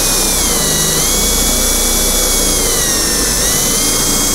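Electric drill with a 1/4-inch bit boring through sheet-steel roof panel into the cab metal beneath, making rosette-weld holes. A steady high motor whine that sags slightly in pitch twice as the bit bears down.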